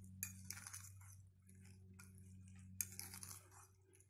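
A metal fork stirring flour into a vegetable and egg batter in a glass bowl, faintly scraping and clinking against the glass in short strokes. A steady low hum sits underneath.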